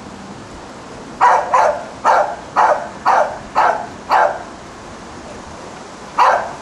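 A seven-month-old puppy barking: a quick string of about seven short barks, roughly two a second, then a pause and one more bark near the end.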